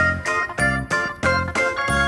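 Background music on a keyboard or electronic organ, with chords and a bass note struck about twice a second in a bouncy beat.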